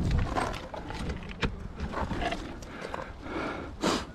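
Footsteps crunching through dry leaf litter and brushing past bare twigs, an uneven run of steps with one louder crunch near the end.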